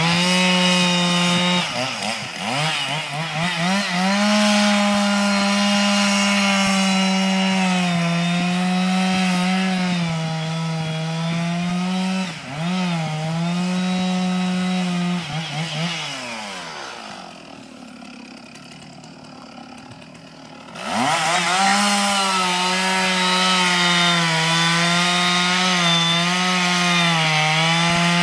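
Two-stroke chainsaw cutting grand fir at full throttle, its pitch dipping briefly twice under load. Past the middle it drops to a quiet idle for about four seconds, then revs back up and cuts again.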